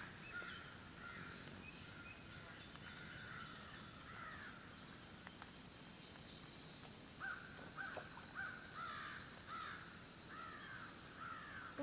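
Insects and a bird calling: a steady high-pitched insect drone, joined about five seconds in by a pulsing insect trill, while a bird gives a run of short repeated calls that come thickest in the second half.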